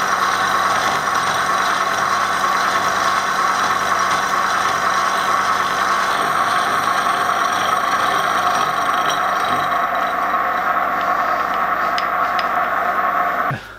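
Elliott Victoria horizontal milling machine running, its arbor-mounted disc cutter taking a steady cut through aluminium. The noise cuts off abruptly just before the end.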